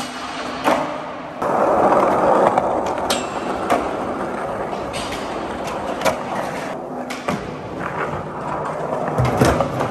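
Skateboards rolling on a concrete floor, with a louder scraping grind about a second and a half in and sharp clacks of the boards popping and landing throughout.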